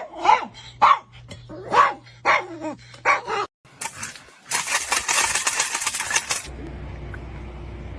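A dog barking and vocalizing in short calls for about three seconds. Then, after a brief gap, comes a rush of noise lasting under two seconds, followed by a steady low hum.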